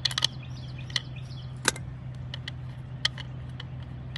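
Sharp metal clicks and taps as a makeshift tool works at the oil fill plug on a semi truck's wheel hub cap, about eight irregular clicks with the loudest a little before the middle, over a steady low hum.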